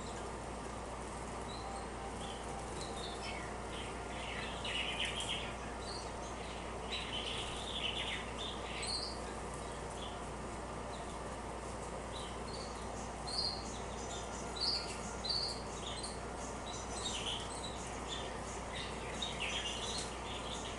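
Female canaries chirping in short, scattered calls, in small flurries now and then, over a steady low hum.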